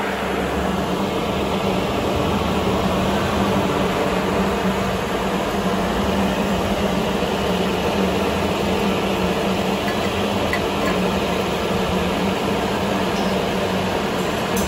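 A machine running with a steady low hum under an even rushing noise, with no change in pitch or level.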